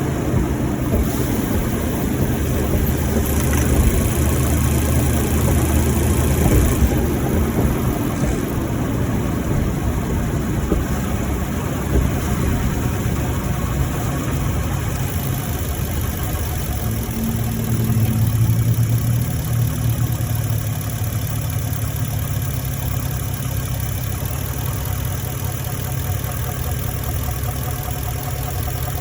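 2018 Ford F-150 V8 engine running, rough and uneven at first, then settling to a steadier low hum after about sixteen seconds. It is the engine the owner reports as knocking while driving.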